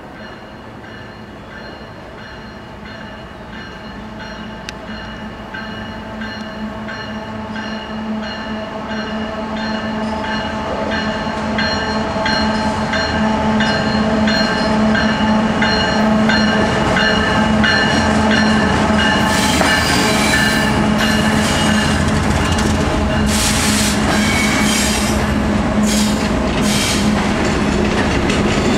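CSX freight train's diesel locomotives drawing nearer, their steady engine drone growing steadily louder. In the second half, as the train rounds the curve, the empty coal hopper cars pass with wheels screeching and scraping against the rails.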